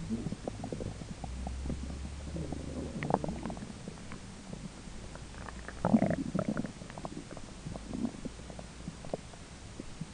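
A person's belly grumbling during digestion: irregular gurgles and squelches from the gut, with louder gurgling bursts about three and six seconds in.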